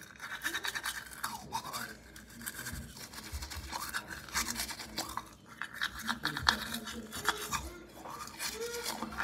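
Manual toothbrush scrubbing teeth through a mouthful of toothpaste foam, in quick back-and-forth strokes that come in runs with short pauses between them.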